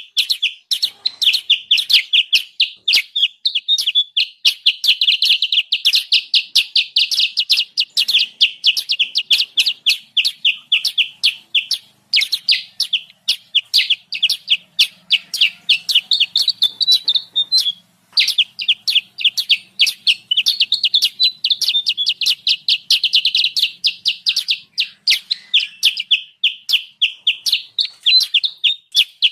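Songbird calls played as a bird lure: a rapid, unbroken string of sharp chattering notes, several a second, pausing briefly twice.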